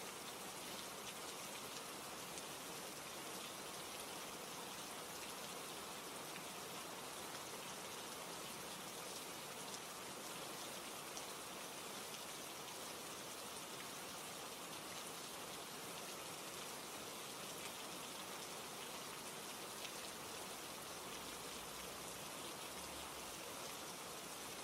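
Steady rain falling, a soft even patter, laid down as an ambient background track.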